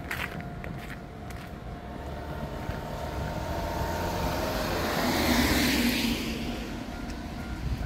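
A road vehicle passing close by: its tyre and engine noise swells to a peak about five seconds in, then fades away.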